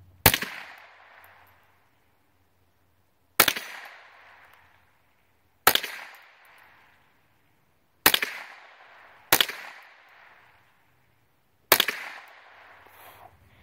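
Marlin Model 60 semi-automatic .22 LR rifle fired six times in slow, aimed succession, a second to three seconds between shots, each sharp crack followed by a short echoing tail.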